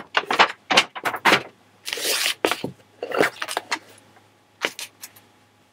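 Paper shopping bag and stiff cardboard gift box being handled: a string of short knocks and scrapes, with a longer paper rustle about two seconds in.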